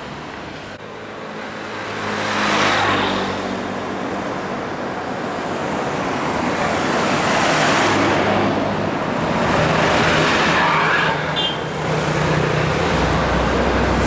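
Road traffic going by close at hand: cars, a motorcycle and buses passing one after another, each swelling up and fading again, over a low engine hum and tyre noise on asphalt.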